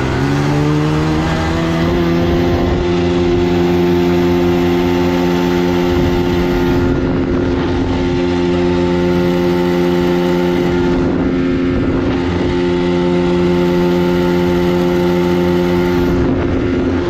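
Bajaj Pulsar 220F's single-cylinder engine pulling hard in first gear during a drag launch. Its pitch climbs over the first couple of seconds, then holds high and steady at high revs until it drops away at the very end.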